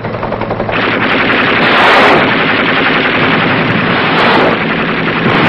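Machine guns firing long, rapid bursts of automatic fire, growing louder about a second in and carrying on without a break.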